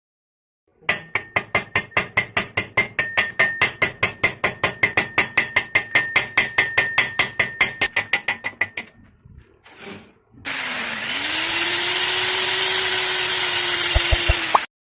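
Rapid, evenly spaced hammer strikes on metal, about six a second for about eight seconds, with a faint ringing tone. After a short pause a power tool starts with a rising hum, then runs steadily for about four seconds before cutting off.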